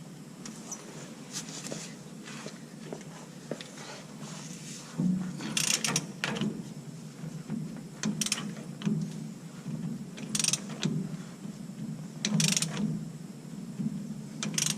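Hand ratchet wrench clicking in short bursts about every two seconds, tightening a nut on a pickup's rear differential after a seal replacement.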